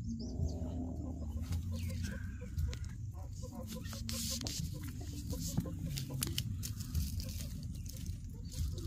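Chickens clucking, in short scattered calls, over a steady low rumble.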